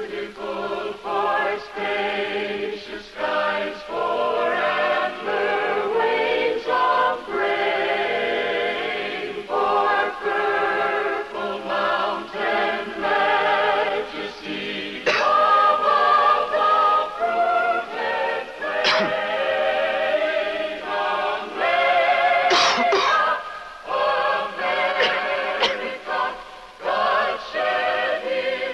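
Music with a choir singing, the held notes wavering.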